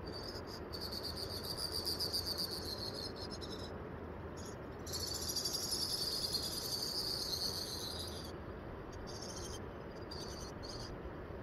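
Insect trilling high-pitched in rapid pulses: two long runs of about three seconds each, with shorter bursts around them, over a steady low background hiss.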